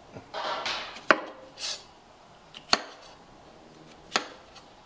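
Kitchen knife chopping a bell pepper on a cutting board: three sharp knocks of the blade hitting the board, roughly a second and a half apart. Softer cutting noise comes before the first knock and just after it.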